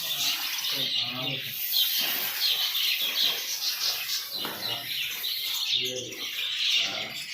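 A flock of caged lovebirds and parrots chattering, a constant din of overlapping high chirps.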